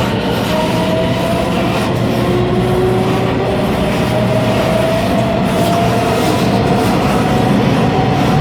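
Running noise heard at the gangway between two cars of a Taiwan Railways local (區間車) train: a steady loud rumble with a low hum and a thin whine that drifts slowly in pitch.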